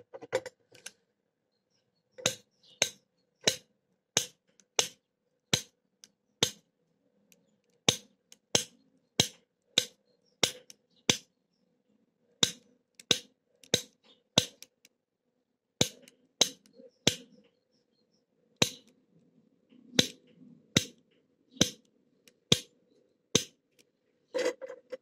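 Manual snap gun (pick gun) being fired into an old Titan padlock's keyway, snapping sharply over and over at about one and a half snaps a second to jump the pin tumblers up to the shear line.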